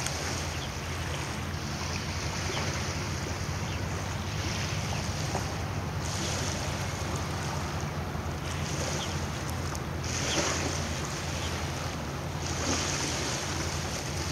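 Waves washing and splashing in surges every couple of seconds, over a steady low rumble, with wind buffeting the microphone.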